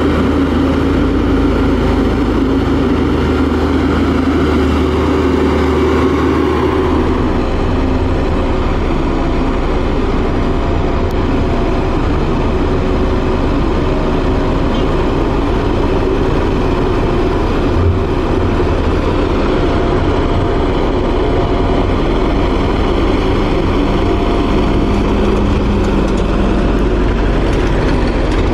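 Diesel engine of a LiuGong single-drum vibratory roller running steadily while the roller works over a gravel road base. Its low rumble changes about seven seconds in.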